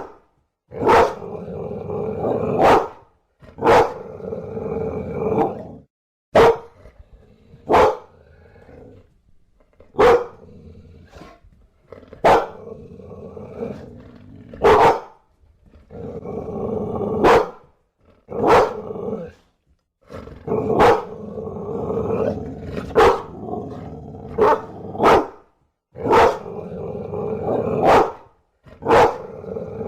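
Bulldog barking in single sharp barks, about one every two seconds, with low growling between the barks.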